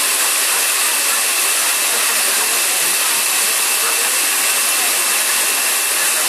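Steady, loud rushing air noise with a thin, constant high whine running through it.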